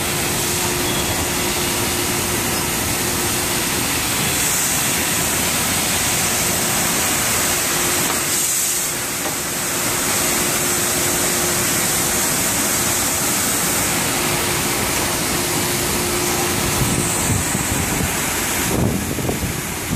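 SYY-350 tunnel-type crate washer running: a steady hiss of its water spray jets over a steady hum from its pump. Near the end there are uneven knocks as a plastic crate pushes out through the rubber curtain flaps.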